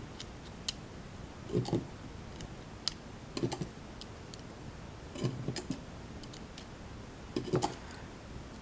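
Light clicks and soft knocks of a disassembled pin-tumbler lock's small parts being handled, in short clusters every second or two.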